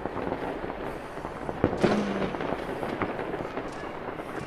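New Year's Eve fireworks and firecrackers popping and crackling steadily, with a sharper bang about a second and a half in.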